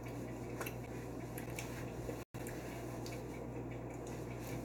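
Low steady room hum with a few faint light clicks, and a brief total cut-out of the sound about halfway through.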